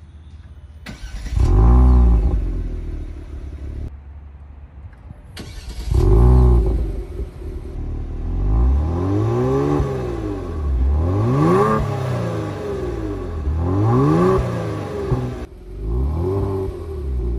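Genesis G70's engine and exhaust being revved, the pitch climbing and falling with each rev: two single revs, then a run of about five quick revs back to back, with a few more near the end.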